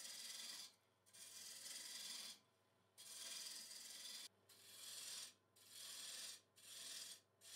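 Faint scraping hiss of a turning gouge cutting a spinning beech spindle on a wood lathe. It comes in stretches of about a second with short breaks between passes, over a low steady lathe hum.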